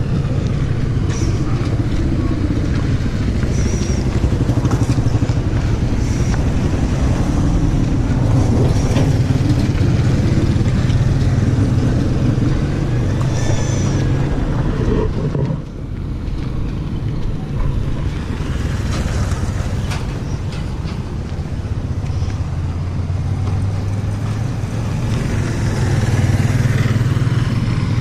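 Motorcycle engines of passing Philippine tricycles (motorcycles with sidecars) running on a dirt road: a steady low engine drone that dips briefly a little past the middle.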